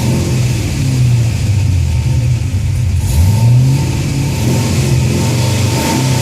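2004 Cadillac CTS-V's V8 engine running, revved once about three seconds in with a rising pitch that then levels off.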